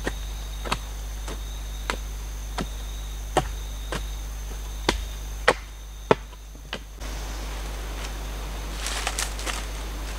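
A run of sharp knocks, about one every two-thirds of a second, as earth is packed down around the base of an upright bamboo post. Near the end come a few quicker clicks and rustling as a bamboo crosspiece is handled, over a steady high buzz of jungle insects.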